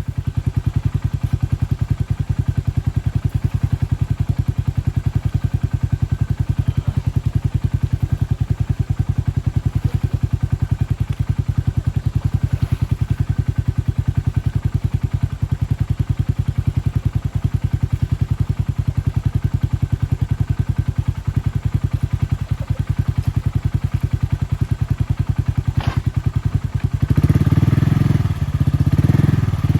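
Engine running at a steady idle with even firing pulses. About 27 seconds in it gets louder and shifts, as if revving or pulling under load.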